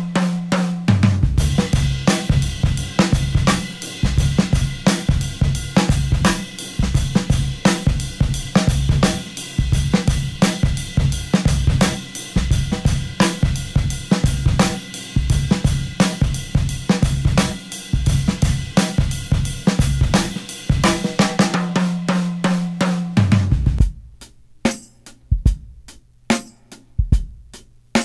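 Breakbeat drum music from a vinyl record played through a Heathkit AA-1219 amplifier's phono section: a steady beat of kick, snare, hi-hat and cymbals. About 24 seconds in it thins to sparse, separate drum hits.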